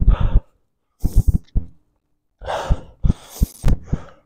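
A player breathing hard in puffs, with a few short low knocks about three seconds in.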